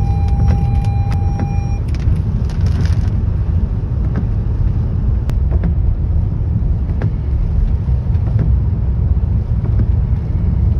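Inside a car driving on a wet road in heavy rain: a steady low rumble of engine and tyres, with the windshield wipers sweeping. A thin steady tone cuts off about two seconds in.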